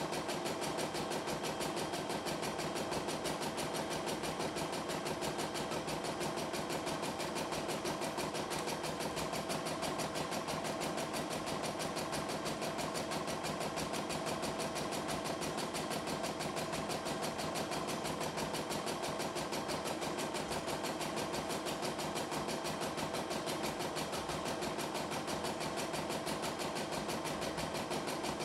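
CNY E960 computerized embroidery machine running an embroidery design: the needle stitching in a fast, even rhythm over the steady hum of its motor as the hoop carriage moves the fabric.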